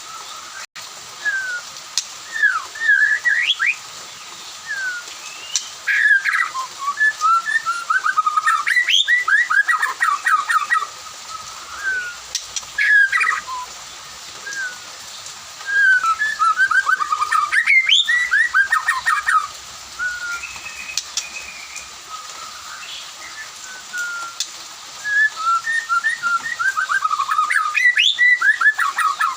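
White-rumped shama (murai batu) singing: loud bouts of rapid, varied whistled phrases lasting a few seconds each, with short pauses between.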